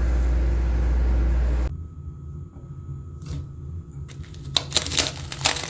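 A steady low hum with a hiss cuts off suddenly about a second and a half in. A single crisp crunch follows, then a quick run of loud crunches near the end: ice or freezer frost being bitten and chewed.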